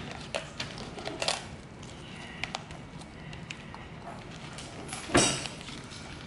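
Becker BK7 fixed-blade knife cutting along a tilapia being filleted: scattered small clicks and scrapes of the blade on the fish, with one louder knock just past five seconds in.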